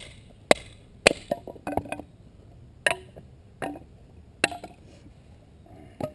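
Batoning wood with a bushcraft knife: a baton striking the blade's spine in sharp knocks, quick at first, then spaced about a second apart, some with a brief ring.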